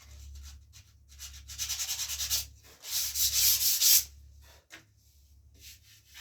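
Sandpaper rubbed quickly back and forth over the rawhide backing of a wooden bow, in rapid short strokes that come loudest in two spells through the middle, then a few light, faint scrapes near the end.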